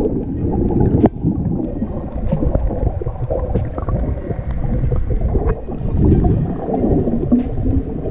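Water sound recorded underwater: a muffled, uneven low rumble and gurgling, with a few sharp clicks, the loudest about a second in.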